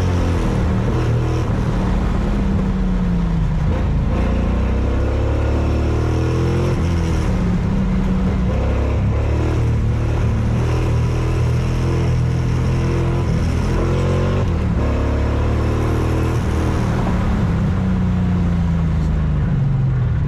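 A car engine running hard under load, its pitch climbing and dropping again and again as it accelerates, lifts and shifts through corners.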